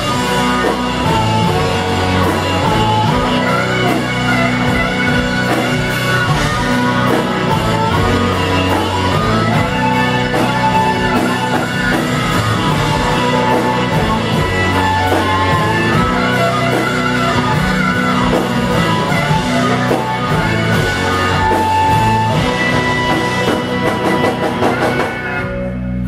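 A live horn-driven soul-rock band playing loud and full: trumpet, saxophone, drum kit and electric bass. The music stops sharply just before the end, as the song finishes.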